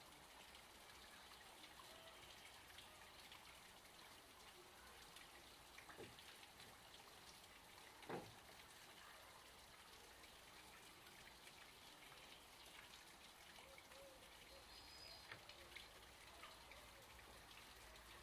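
Near silence: faint outdoor background hiss, with two soft knocks about six and eight seconds in.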